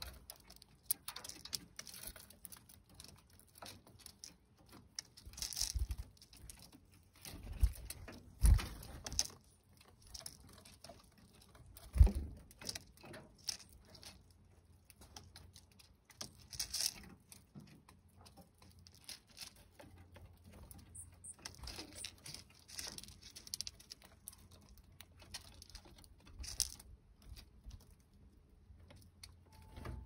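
Spotted towhee foraging in a tray of black-oil sunflower seeds on a wooden platform feeder: irregular clicks, taps and rustles of seeds being picked through and shells worked. A few louder low thumps stand out, about 8 and 12 seconds in.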